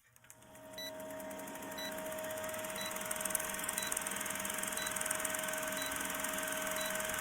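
A short, high electronic beep repeating about once a second over a steady hum and hiss that grows louder over the first two seconds.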